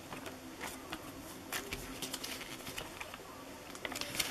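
Paper rustling and crackling in short, irregular bursts as a folded instruction leaflet and warranty card are handled and unfolded.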